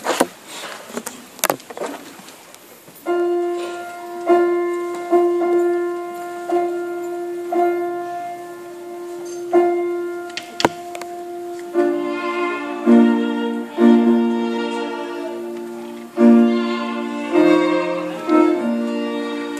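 Processional piano music with violin for the bride's entrance. A few knocks in the first seconds, then about three seconds in a single note begins, sounding on and re-struck slowly; from about twelve seconds it opens into fuller chords and melody.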